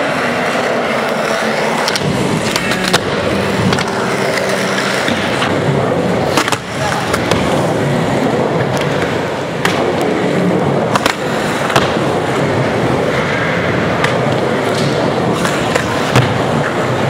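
Skateboard wheels rolling on a wooden ramp: a steady rumble, broken every second or few by sharp clacks as the board and trucks strike the ramp and coping.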